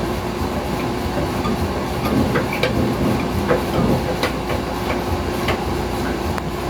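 Pipe cutter being turned around a 1/2-inch copper water line, giving a string of small irregular clicks and scrapes over a steady low hum.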